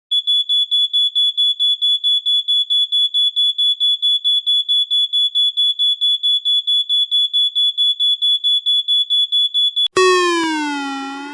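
Nokia T26 tablet's built-in alert sounds: a rapid, high-pitched electronic beep, about five beeps a second, like a smoke alarm. About ten seconds in it switches to a louder ringing tone whose pitch wavers up and down as it fades.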